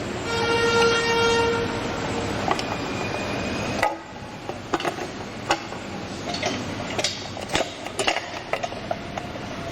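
A loud, steady horn-like tone lasting about a second and a half, then a fainter one. After that, a run of scattered sharp clicks and knocks from metal bracket parts and hardware being handled during assembly.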